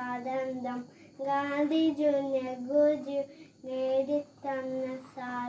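A boy singing solo without accompaniment, holding long, steady notes in short phrases with brief pauses for breath between them.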